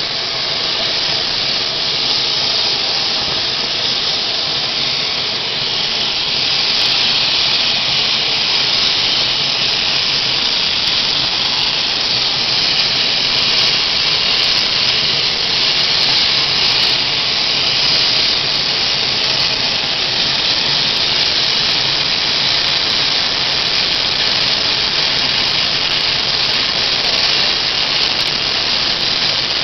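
Transall C-160's Rolls-Royce Tyne turboprop engines running on the ground, a steady, loud, high rushing sound from the turbines and propellers that grows a little louder about six seconds in.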